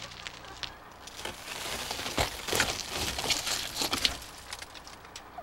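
Shattered car windshield crunching and crackling as it is pried and pulled out of its frame: a run of sharp cracks from about a second and a half in to near the end.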